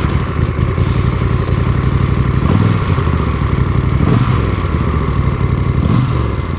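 Moto Guzzi MGX-21's 1380 cc air-cooled transverse V-twin idling with a lumpy, rhythmic beat. The throttle is blipped briefly about three times, and each blip lifts the pitch for a moment.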